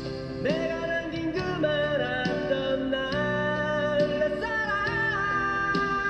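Background music: a slow song with guitar accompaniment, its melody held in long notes that slide from one pitch to the next.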